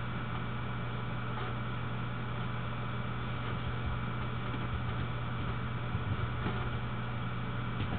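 Steady low hum over even hiss, with a few faint clicks.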